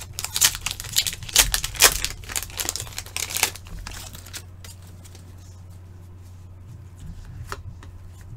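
Plastic wrapper of an Upper Deck hockey card pack being torn open and crinkled: a quick run of crackles for about four seconds, then quieter with a few faint clicks, over a low steady hum.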